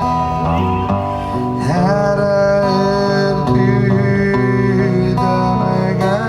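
Live band music in a Georgian style: a melody of long held notes with a slide up between them, over steady low notes.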